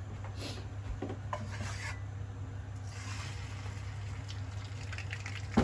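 Beaten egg poured into hot oil in a non-stick frying pan, with a faint rasping sizzle over a steady low hum. A sharp knock comes near the end.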